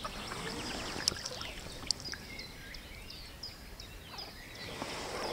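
Small birds chirping and trilling in quick, overlapping calls over a low wash of moving river water, with two sharp clicks about one and two seconds in.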